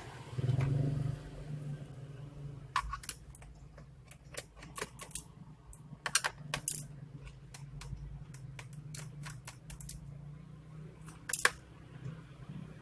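Hands working on a laptop with small tools: scattered sharp clicks and taps at irregular intervals, with clusters around the middle and a pair of loud clicks near the end, over a steady low hum.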